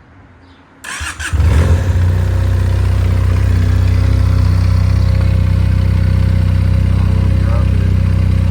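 Benelli 300's two-cylinder engine cold-started: a brief crank about a second in, then it catches and settles into a loud, steady idle.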